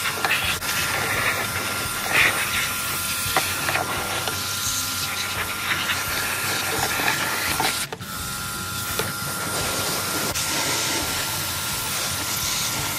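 Steady hiss of water being sprayed while cleaning washing-machine parts, with a faint, steady high whine running through it. The sound breaks off for a moment about eight seconds in, then carries on.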